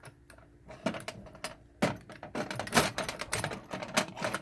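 Metal keys clicking and jangling against a padlock as a key is fumbled into its keyway one-handed. A few scattered clicks at first, then a quick run of clicks and rattles from about two seconds in.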